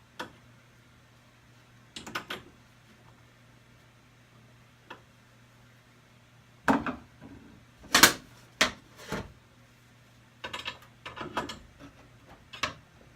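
Scattered knocks and metallic clanks from tools and hardware being handled, loudest in a cluster a little past the middle, over a steady low hum.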